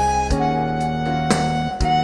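Instrumental background music: a held melody line over sustained chords, with percussion hits about once a second.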